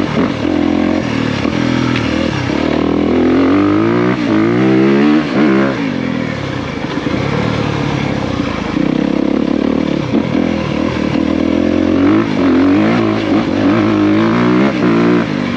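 2023 Honda CRF250R's single-cylinder four-stroke engine running under load as the dirt bike is ridden, its pitch climbing and dropping again and again as the throttle is opened and closed.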